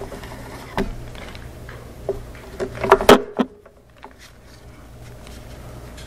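Scattered knocks and clicks, the loudest a quick cluster about three seconds in, over a low steady hum that drops out just after it.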